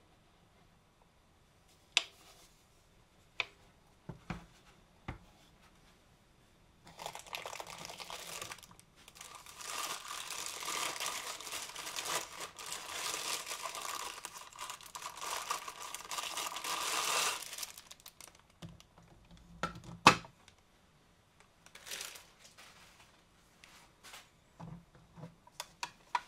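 Thin plastic wrapping crinkling for about ten seconds as it is pulled off a clear plastic cup, with a few light clicks of plastic parts before it. Just after the crinkling stops there is one sharp, loud knock, then more small clicks and taps.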